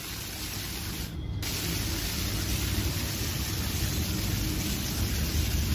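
Compressed-air texture spray gun spraying liquid-putty wall texture: a steady hiss of air and material, with a brief drop in the hiss about a second in.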